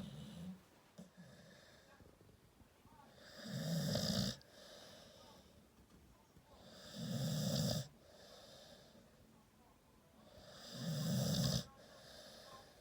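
American Staffordshire Terrier snoring: three loud, rasping snores about every three and a half seconds, each lasting about a second, with quiet breathing between.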